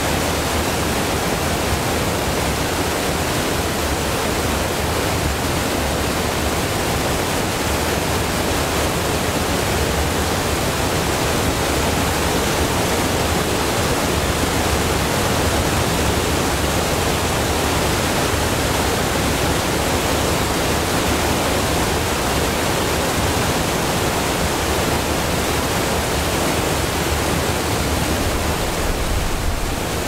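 Irrigation water pouring over the concrete notched weirs of a flow-dividing works and splashing into the channel below: a steady rush of falling water.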